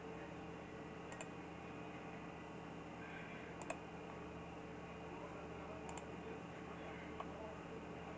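Three computer mouse clicks a couple of seconds apart, over a steady background hum and hiss.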